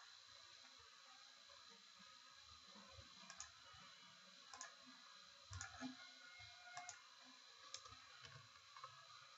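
Near silence with a few faint computer mouse clicks, scattered one at a time from about three seconds in.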